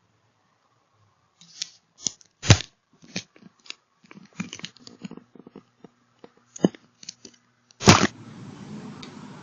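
A doorbell camera being struck and pried at, heard through its own microphone: a string of sharp knocks and cracks with scraping in between. The hardest blows land about two and a half seconds in and again near the end.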